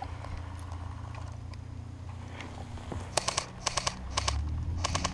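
Short bursts of airsoft rifle fire: four quick bursts of a few sharp shots each, starting about three seconds in. A steady low wind rumble on the microphone runs underneath.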